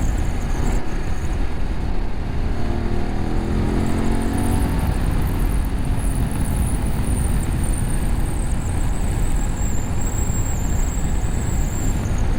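BMW F850GS parallel-twin engine through an Akrapovic slip-on exhaust with a cat bypass, ridden at speed under a heavy low rumble; the engine note rises as the bike accelerates a few seconds in, then settles back into the steady rumble.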